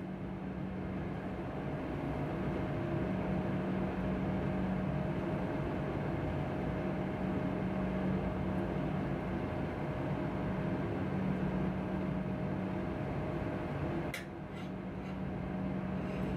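Steady mechanical hum of room equipment or ventilation, with a low steady tone and a couple of fainter higher ones. A few faint clicks come about 14 seconds in.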